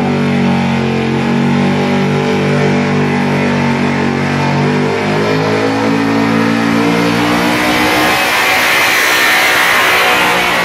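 Pickup truck's engine running hard at steady high revs as it pulls a weight-transfer sled down a dirt track. A broad rush of noise swells over the engine in the last few seconds as the truck comes past.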